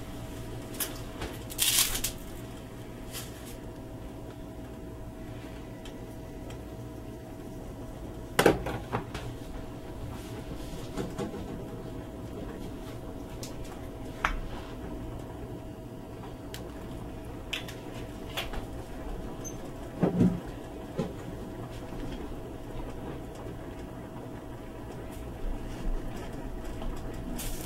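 A pot of water at a rolling boil with angel hair pasta cooking in it, under a steady low hum. A few short sharp clicks and knocks come every few seconds, the loudest about eight and twenty seconds in.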